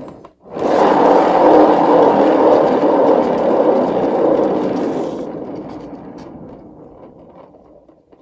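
Turntable (lazy susan) under a poured-paint tile spun by hand, its bearings giving a steady whirring noise that starts about half a second in and slowly dies away over the last few seconds as the spin coasts down.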